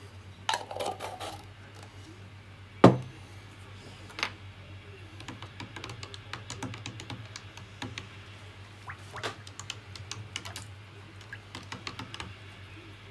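Glass jar knocked down onto a wooden workbench just under three seconds in, the loudest sound. After it comes a long run of small light clicks and taps from a metal spoon stirring water in a cut plastic bottle. A low steady hum runs underneath.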